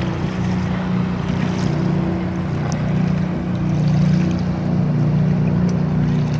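Motorboat engine running at speed as the boat passes on the river, a steady low drone that swells slightly about four seconds in.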